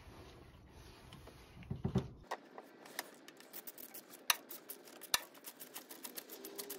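Faint, scattered small clicks and ticks, with two sharper ones in the second half, as a TimeSert steel thread insert on its installation tool is started by hand into a threaded hole in an aluminum engine block.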